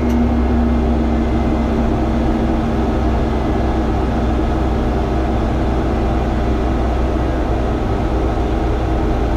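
A 50-ton mobile crane's diesel engine running steadily, heard from inside its cab: an even, low drone with a few steady hum tones.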